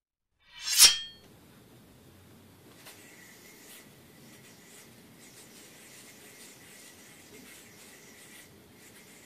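A short, loud sound effect about a second in, then the faint rubbing of yo-yo string and the thin steady whir of a YoYoFactory Czech Point yo-yo spinning on its string as it is worked through a string trick.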